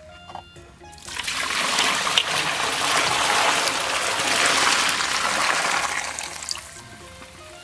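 Chili and scallion broth poured from a wok into a steel pot over cow hooves: liquid splashing and trickling for about five seconds, starting about a second in and tailing off near the end.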